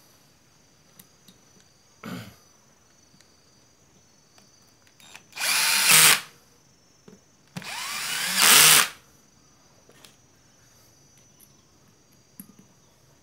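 Makita cordless drill/driver running twice in short bursts, about a second each, driving in bolts on a sprayer pump housing. Each run gets louder toward its end before it stops. A light knock of handling comes before the runs.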